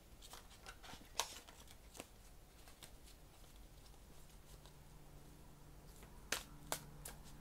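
A deck of tarot cards being shuffled by hand: faint irregular card flicks and riffles, with sharper snaps about a second in, at two seconds, and twice near the end.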